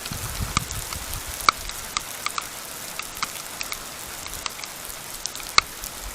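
Raindrops ticking irregularly on a trail camera over a steady hiss, with a few soft low thumps in the first second.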